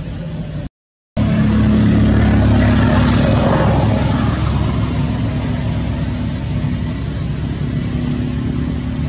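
A motor engine's steady drone with a low hum. It cuts out completely for about half a second just under a second in, comes back louder, then slowly eases off.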